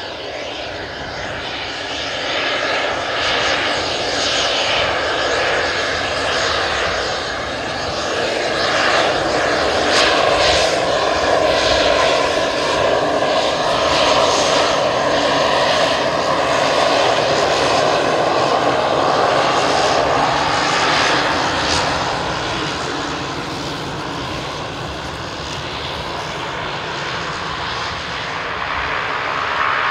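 Pilatus PC-12's single Pratt & Whitney PT6A turboprop running at low power while the aircraft taxis: a steady turbine whine over propeller hum. It grows louder about a third of the way through as it comes nearest, then eases off.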